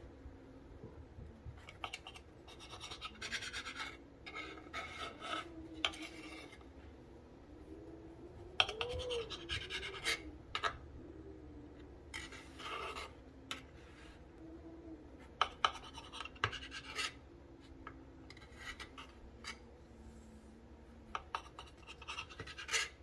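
Kitchen knife sawing through bread crusts and a fruit sandwich on a cutting board: scratchy cutting strokes in irregular bursts, with short knife-on-board scrapes and taps.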